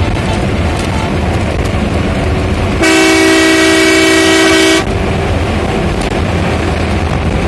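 Bus horn sounding one long, steady blast of about two seconds near the middle, over the continuous rumble of the bus's engine and tyres heard from inside the cabin.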